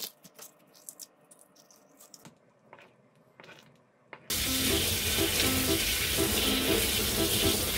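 Kitchen tap running full into a stainless steel sink, starting suddenly about four seconds in. Before that there are only faint light clicks of boiled-egg shell being handled.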